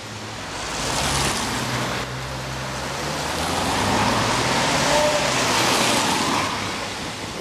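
Ferrari F12berlinetta's V12 engine running as the car pulls away on a wet road, over a steady hiss of tyres and spray on the wet surface. The hiss swells about a second in and again from about three to six seconds in.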